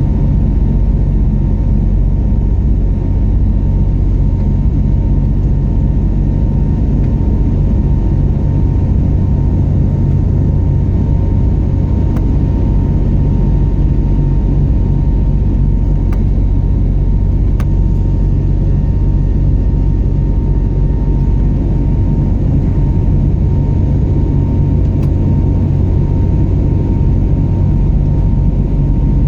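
Steady low drone of a passenger airliner heard from inside the cabin, with a thin constant whine above it. It holds level throughout, with no rise or fall.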